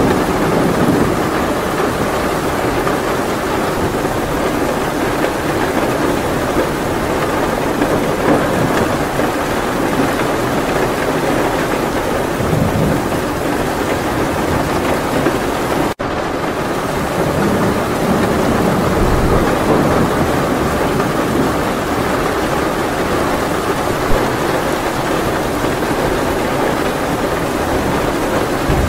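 Steady heavy rain, an even hiss with a low rumble of thunder underneath. The sound cuts out for a split second about halfway through, then resumes.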